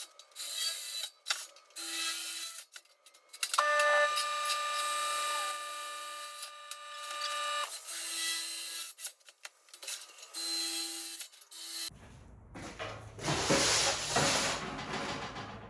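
Metal shop work noises: scraping, rubbing and knocks, with a small power-tool motor whining steadily for about four seconds in the middle. Rough rubbing or wiping follows near the end.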